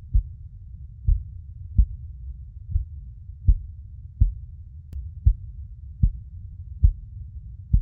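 Heartbeat sound: soft low thumps at a steady pace of about 75 beats a minute, over a continuous low rumble like the muffled sound inside the womb.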